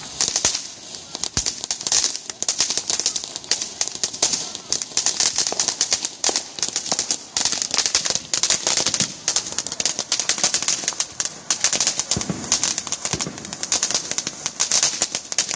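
Ground firework fountain spraying sparks, with dense, rapid crackling over a steady hiss.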